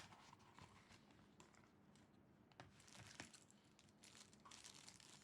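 Near silence, with a few faint clicks and light rustling of a small package being opened by hand.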